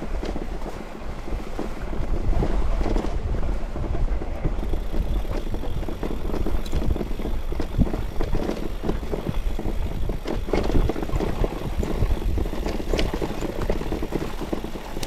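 Wind buffeting the microphone over a steady low rumble, with frequent small knocks and rattles from an electric mountain bike riding over a rough trail.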